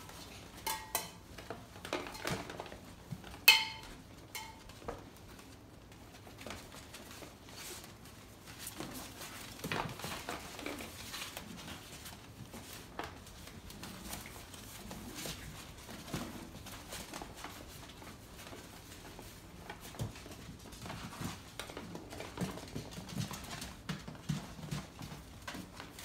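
Hanging metal cans and lids on a puppy sound-enrichment frame clanking and ringing as the puppies bump them: several sharp clanks in the first few seconds, the loudest about three and a half seconds in. After that come the softer patter and rustling of five-week-old Labradoodle puppies playing.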